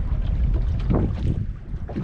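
Wind buffeting the microphone over water lapping against a small aluminium boat's hull, with brief louder swells about a second in and near the end.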